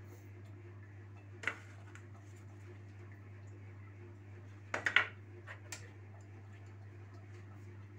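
Kitchen dishes clinking and knocking: one light click about one and a half seconds in, then a quick cluster of louder clinks and knocks near the five-second mark, over a steady low hum.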